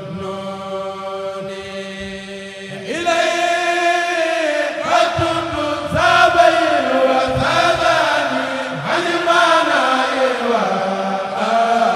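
A kourél, a Senegalese Mouride chorus, chanting an Arabic khassida with long held notes. The voices are quieter for the first three seconds or so, then swell louder into phrases that rise and fall.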